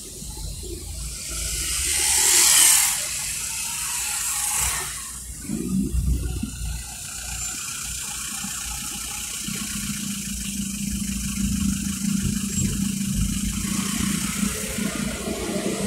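Traffic noise heard from inside a car in slow traffic: a loud rushing hiss swells and fades about two seconds in, then a steady engine hum sets in about halfway through.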